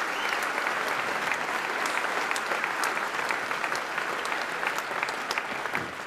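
Large audience applauding with dense clapping that dies away near the end.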